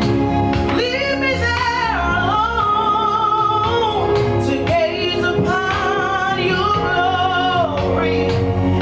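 A singer performing a song over musical accompaniment, holding long notes with vibrato above sustained backing chords.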